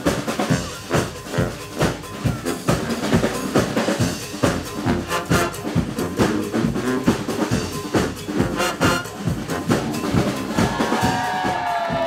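Brass street-band music: horns playing held melodic lines over a steady snare and bass drum beat, about two strikes a second. Near the end a higher melody line comes in over it, sliding in pitch.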